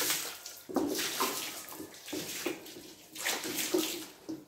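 Water spraying in several short bursts onto a car's engine bay during washing.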